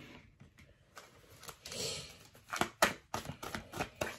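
A deck of oracle cards being picked up and shuffled by hand: a soft sliding rustle about a second and a half in, then a run of quick, sharp clicks as the cards slap together.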